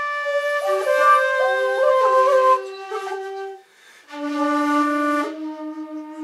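Two shakuhachi bamboo flutes playing a slow melody together, breathy held notes that step between pitches. The sound drops away briefly a little past halfway as the players breathe, then comes back on a long low note.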